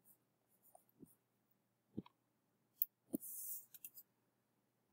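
A few faint, scattered clicks and taps of a stylus on a touchscreen while handwriting, with a brief soft hiss a little past three seconds in.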